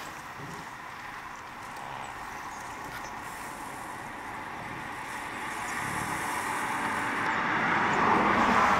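Road traffic: a vehicle's tyre and road noise, a steady hiss that grows steadily louder over the last few seconds as it approaches.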